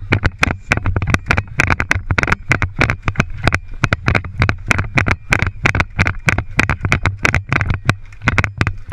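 Running footsteps crunching through dry leaf litter, with gear jostling against a body-worn camera: rapid, uneven thuds, about five a second, over a low rumble.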